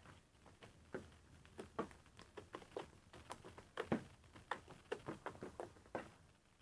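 Hands squishing and poking a fluffy slime made airy with dish detergent, giving faint, irregular sticky clicks and pops, several a second.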